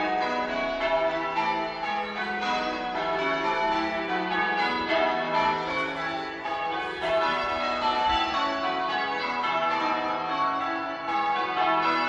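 Church tower bells ringing, struck one after another in a steady, continuous run of overlapping, ringing tones.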